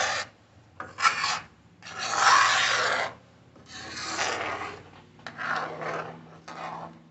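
A long-handled spoon scraping through thick beetroot and jaggery paste against the bottom of an iron kadai, in a series of uneven stirring strokes. The paste is reducing on high flame.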